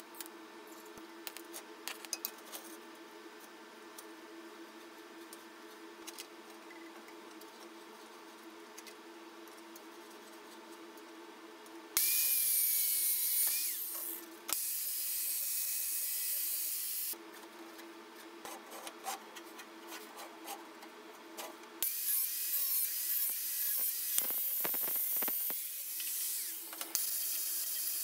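An angle grinder working stainless steel tubing in several loud bursts, each a high-pitched hiss with a motor whine that drops as it slows, beginning about halfway through. Before that, a faint steady hum with a few light clicks of metal handling.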